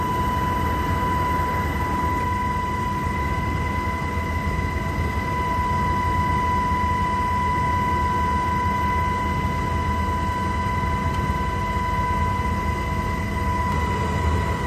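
Steady noise of the aircraft shooting the aerial footage: a low engine or rotor rumble under a constant high whine.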